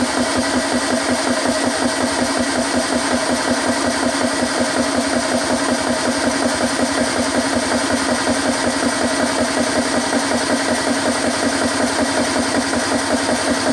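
CS GX3 portable PCP air compressor running steadily under load, its pump chugging in a fast, even pulse as it fills an air rifle toward 3,000 PSI.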